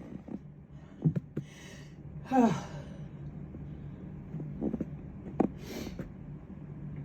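A person draws a sharp breath and then sneezes once, a loud vocal burst falling in pitch, about two and a half seconds in. A couple of sharp clicks come before it, and another quick hissy intake of breath comes near the end, over a steady low hum.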